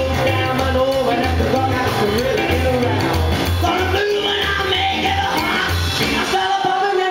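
Live rock and roll band: a male singer belting over a stage piano and drums, with a bass line pulsing steadily underneath.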